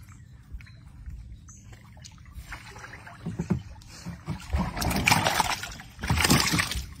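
Wooden paddle dipping and pulling through river water beside a narrow boat. The first few seconds are quiet, then splashing strokes start about four seconds in, with the two loudest near the end.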